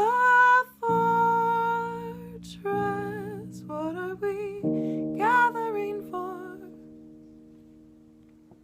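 Female voice singing a closing phrase without clear words, with vibrato, over sustained instrumental chords that change a few times. The song then fades out to its end.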